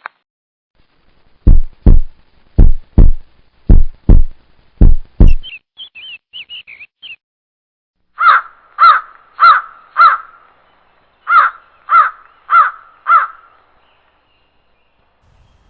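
Eight heavy knocks in four quick pairs, the loudest sounds here, then a few faint high chirps, then a crow cawing eight times at an even pace of a little under two calls a second.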